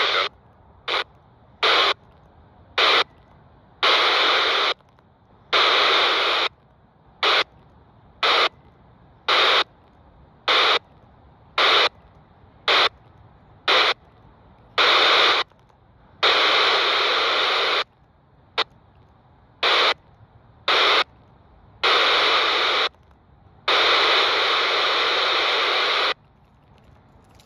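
Handheld scanner tuned to FM on the 27 MHz CB band, its squelch opening and closing as it steps through the channels: about twenty bursts of radio static, some brief and some lasting a couple of seconds, cut off sharply between them.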